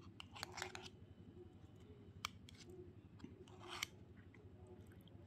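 Metal spoon stirring thick mashed potatoes in a ceramic bowl: a few short squelching scrapes, with a sharp click of metal against the bowl about two seconds in.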